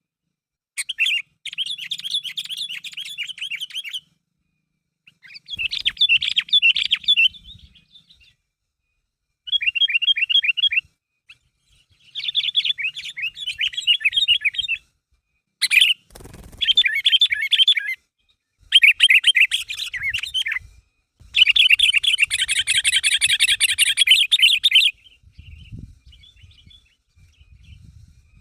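Sooty-headed bulbul (kutilang) singing in lively bursts of rapid chattering notes, about eight phrases separated by short silences, the longest and loudest near the end.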